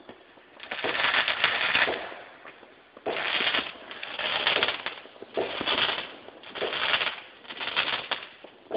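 Fireworks crackling in repeated bursts of rapid pops, each burst lasting about a second, with short lulls between them.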